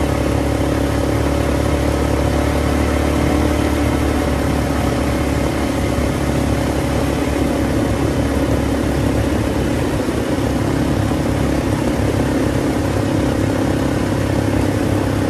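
Small ATV engine running at a steady cruising speed as it is ridden, a level drone that neither rises nor falls, with wind rumbling on the microphone.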